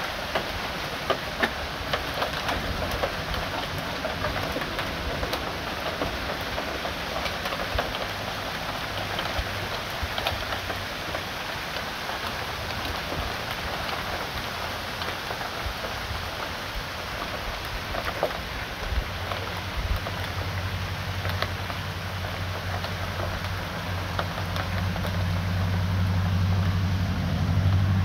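Small hailstones falling on a garden bed, lawn and pavement: a steady hiss of pellets with many sharp little ticks of single stones striking. A low steady hum builds in over the last several seconds.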